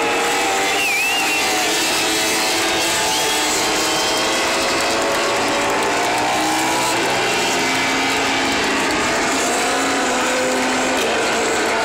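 A packed motorcycle-racing crowd cheering and making a continuous din, over the engines of MotoGP bikes riding slowly past.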